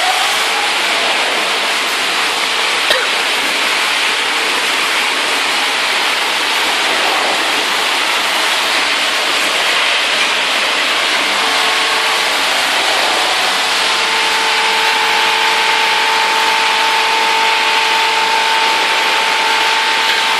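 Snack-food production machinery running, including rotating drum seasoning machines: a steady, dense rushing machine noise. A single click comes about three seconds in, and a steady hum joins partway through.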